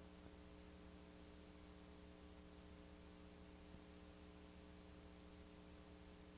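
Near silence: a faint steady electrical hum under a light hiss.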